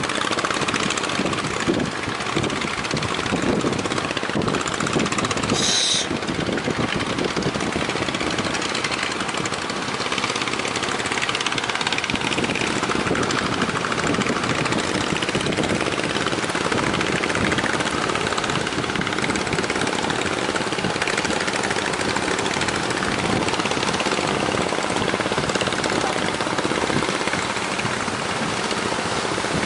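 Speedboat's outboard engine running hard at full throttle, steady throughout, mixed with a heavy rush of wind and water.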